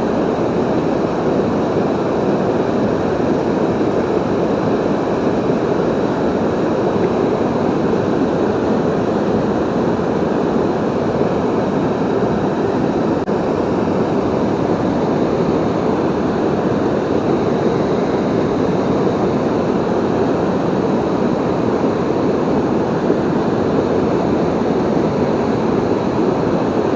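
Steady rush of water pouring over a river waterfall: a constant, even roar with no breaks.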